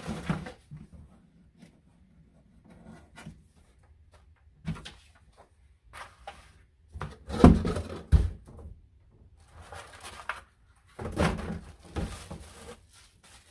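Cardboard box and paper leaflets being handled during unpacking: scattered rustles and bumps, with a couple of sharp knocks about halfway through and another burst of rustling and bumping near the end.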